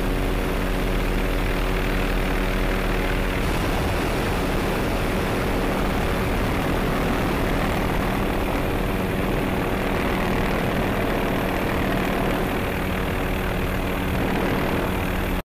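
MD-530F light helicopter flying low, its turbine engine and rotor making a steady, loud noise. The tone changes about three and a half seconds in, and the sound cuts off suddenly near the end.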